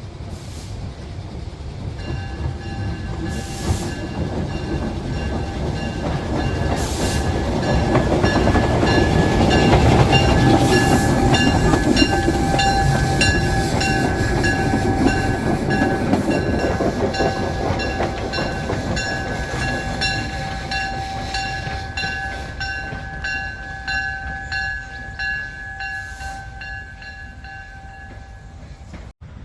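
A narrow-gauge train running past, growing louder to a peak about ten seconds in and then fading, with its wheels clicking rhythmically over the rail joints and a steady high-pitched squeal. It cuts off suddenly at the end.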